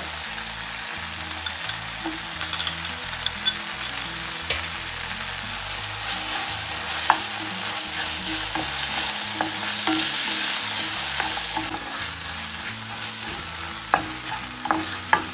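Diced bell peppers and onions sizzling in oil in a frying pan as a spatula stirs and scrapes them, with tomato sauce just stirred in. The sizzle is a steady hiss, with scattered clicks and knocks from the spatula against the pan.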